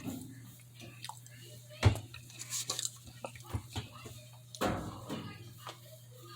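Close-up mouth sounds of eating cornstarch: scattered wet smacks and sticky clicks, with a louder smack about two seconds in and another just before five seconds.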